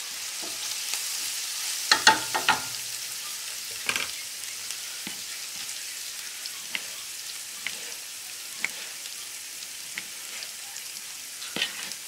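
Onion frying in oil in a pan, a steady sizzle, with a knife cutting through a tomato onto a plastic cutting board: sharp knocks about once a second, and a louder cluster of knocks about two seconds in.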